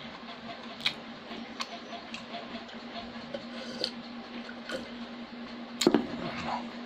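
Close-up eating sounds: small wet mouth clicks and chewing as rice and chicken are eaten by hand from a steel plate, with a sharp knock about six seconds in, under a faint steady hum.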